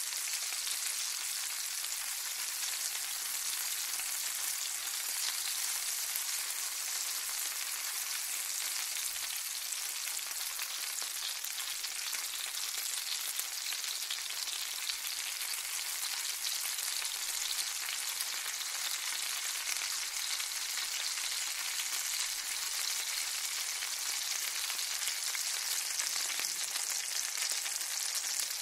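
Food frying in hot oil: a steady sizzle with dense fine crackling.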